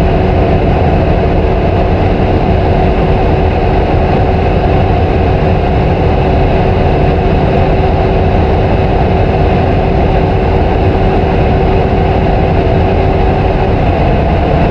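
Supercar engine running at a steady, unchanging pitch, with a constant humming tone that drops out about a second before the end.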